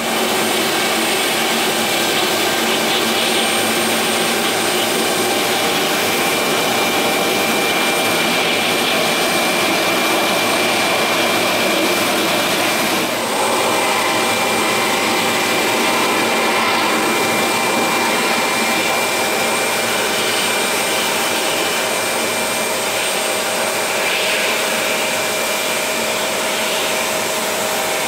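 Lockheed TriStar's Rolls-Royce RB211 turbofans running at taxi power: a steady jet rush with high whining tones, whose pitch changes about halfway through.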